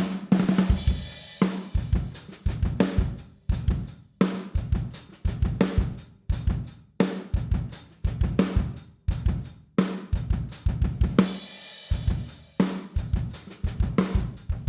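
A recorded drum kit playing a groove: kick, snare, hi-hat and cymbals, heard through the close microphones blended with a heavily processed trash microphone. The playing comes in short phrases of repeated hits with brief breaks between them.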